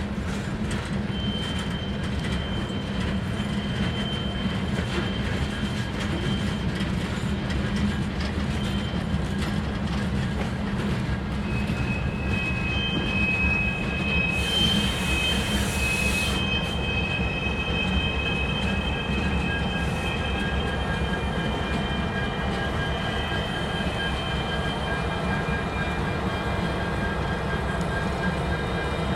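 Freight train cars rolling past with a steady low rumble. Wheels squeal in thin, high, drawn-out tones that come and go. A short burst of hiss comes about halfway through.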